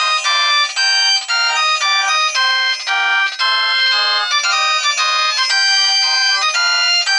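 Stock ringtone of a Ginzzu R11D mobile phone playing: a quick electronic melody of short notes and chords, several a second, thin with no bass.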